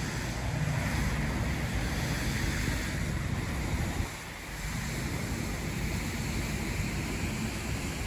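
Wind buffeting the microphone: a steady low rush that dips briefly about halfway through.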